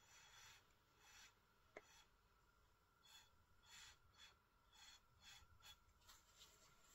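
Near silence: quiet room tone with faint, short hissy puffs and scratches, about one a second.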